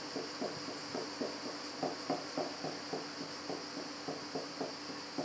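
A metal fork pricking rolled-out piadina dough over and over, its tines tapping through the thin dough onto a wooden pastry board about four times a second. This is the docking of the flatbreads before they are cooked.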